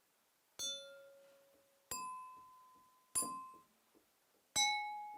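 Four single strikes on glasses, each ringing out with a clear note and fading. The notes come about a second and a half apart: the first lowest, the middle two higher and alike, the last a little lower again.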